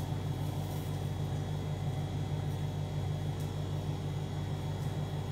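The Continental F162 gasoline engine of a 1958 Lincoln SA200 engine-driven welder, running steadily: an even, low hum that holds one pitch throughout.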